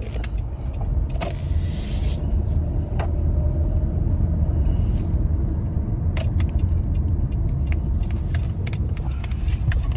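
Car driving, heard from inside the cabin: a steady low rumble of road and engine noise that grows louder over the first few seconds as the car gathers speed, with a couple of brief rushing hisses and a few light clicks.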